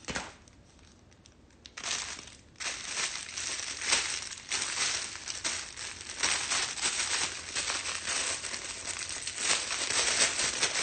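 Clear plastic packaging crinkling and rustling as it is handled and pulled open. A short crinkle comes about two seconds in, after a near-quiet moment, and steady irregular crinkling follows from about two and a half seconds on.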